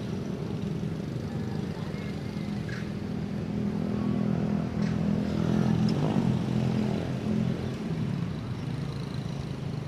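A motor vehicle's engine running, a low drone that swells about four to seven seconds in and then eases off, as if passing by.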